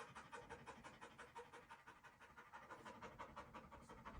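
Faint, rapid panting: short quick breaths at about seven a second, keeping an even rhythm.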